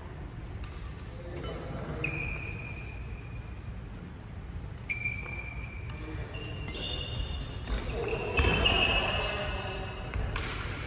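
Rubber-soled court shoes squeaking sharply and repeatedly on an indoor court floor as badminton players move through a rally, with sharp taps of rackets striking the shuttlecock.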